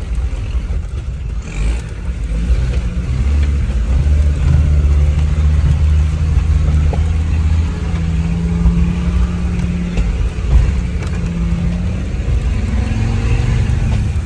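Land Rover Discovery 2's engine pulling the 4x4 slowly up a rocky track, heard from inside the cabin. It is a low, steady drone that grows louder about two seconds in, with a few faint knocks as the vehicle crawls over the stones.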